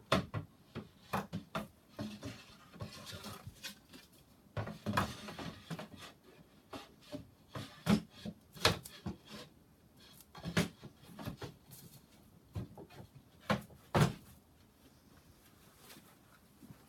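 Wooden parts of a flat-pack toy box bench being handled and fitted together: irregular knocks and clacks, the sharpest about eight and fourteen seconds in, with stretches of scraping and rubbing between.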